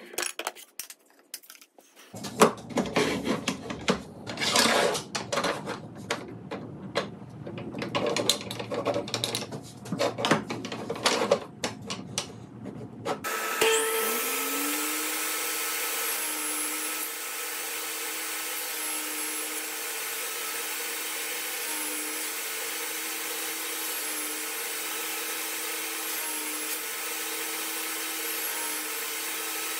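Rapid, irregular knocking and rubbing of wood pieces. About thirteen seconds in, this gives way to a power tool motor that rises in pitch as it comes up to speed and then runs steadily.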